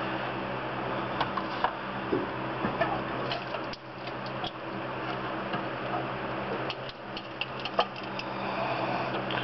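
Scattered light clicks and ticks as the Lotus Elise/Exige's original oil pan is worked loose from the engine by hand, its sealant bond already broken, over a steady low hum. The clicks come in small clusters, sharpest near the end.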